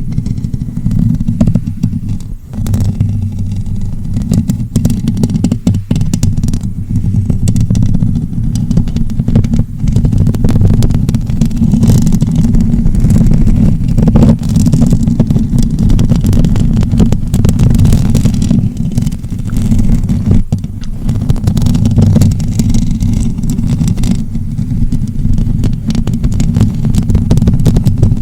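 Close-up scratching on the microphone: a continuous, heavy low rumble with many small crackles and clicks.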